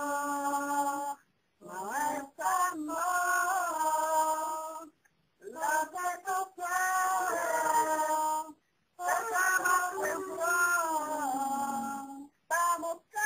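A high voice singing without accompaniment, holding long notes and sliding between pitches in short phrases, each broken off by a brief silence.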